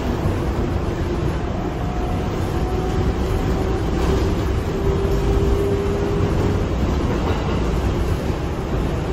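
The rumble of an R142A subway car running along the track, heard from inside the car. A faint whine climbs slightly in pitch over the first six seconds, then fades.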